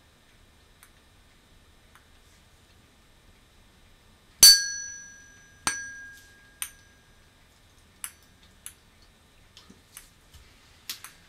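Tuning fork struck twice about a second apart, each strike a sharp clink followed by a clear ringing tone that fades over a second or so; the first strike is the loudest. Then a scatter of light ticks as the small hanging ball taps against the vibrating prongs.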